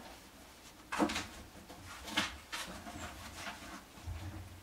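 Shredded paper bedding rustling and crinkling in several short bursts as a puppy steps and turns on it.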